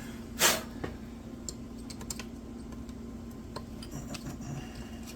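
Light clicks and taps of tools and small parts being handled as a chainsaw is taken apart, with one louder, short scrape about half a second in. A steady low hum runs underneath.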